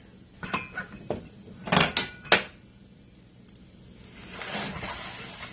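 A cooking utensil clinks and scrapes against a frying pan several times as eggs are scrambled. The loudest knocks come about two seconds in. From about four seconds in, a sizzle of eggs frying in oil rises.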